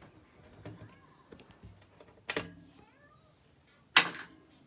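Small clicks and two sharp knocks of a screwdriver and plastic parts as a window air conditioner is taken apart. The knocks come about 1.7 seconds apart, and the second is the loudest.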